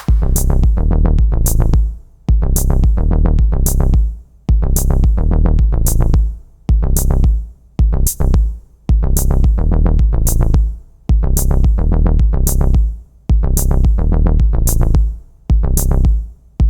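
Electronic music: a drum-machine beat over a heavy synth bass line, without vocals. Its loud, even pattern breaks off briefly about every two seconds.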